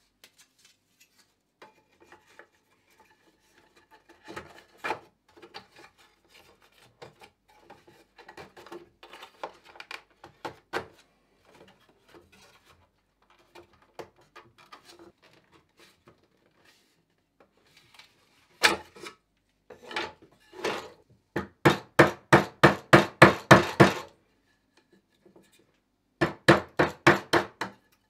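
Light knocks and scraping of a metal frame being handled and set onto a wooden frame on a workbench. Then a hammer strikes a nail at the corner of the oak frame in two quick runs at about four strikes a second; these are the loudest sounds.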